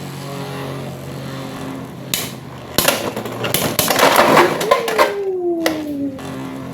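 Two spinning Beyblade X tops whirring in a plastic stadium, clashing with sharp clicks and a rapid rattle of hits, then a whine falling in pitch as a top loses spin.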